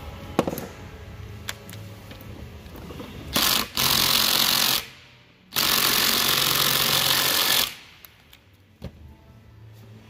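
A power driver running in three bursts, the last about two seconds long, backing fasteners out of a Ford steering column during disassembly. A few light metal clicks come before it.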